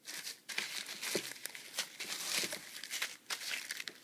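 Packaging being handled and crinkled by hand, an irregular run of rustles and crackles as items are lifted out of a kit box.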